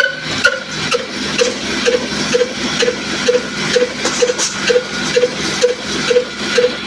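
Old Ruston Hornsby stationary diesel oil engine running at slow speed, driving a flour mill: an even beat of about two strokes a second over a steady hum.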